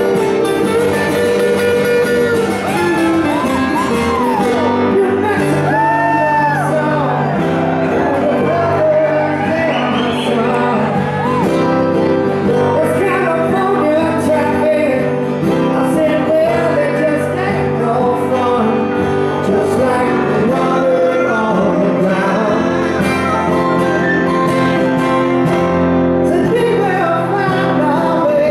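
Live acoustic band music: acoustic guitars strumming and picking a slow folk-rock song, with a melody line that bends up and down in pitch.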